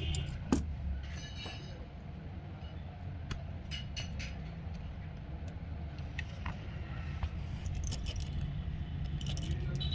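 Scattered light metallic clicks and ticks of small repair tools working on an opened iPhone 7 Plus, over a steady low hum.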